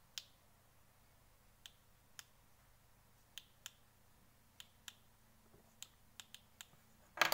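About a dozen faint, sharp clicks at uneven intervals over a faint low hum, with one louder click just before the end.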